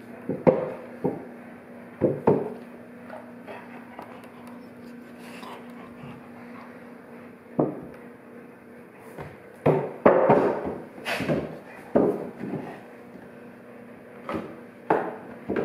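Irregular sudden crackles and knocks from a cardboard cereal box being handled, and near the end a golden retriever biting and tearing at the cardboard.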